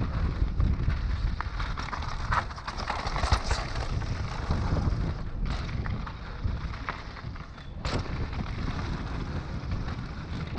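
Mountain bike descending a rocky trail: wind buffeting the microphone with a steady rumble, over the hiss of tyres on rock and gravel and the scattered clicks and knocks of the bike rattling over bumps.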